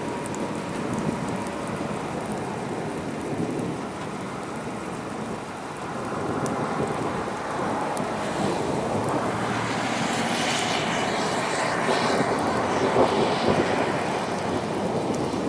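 Thunderstorm rain falling steadily. In the middle a broad hiss swells up and then eases off, loudest about ten to thirteen seconds in.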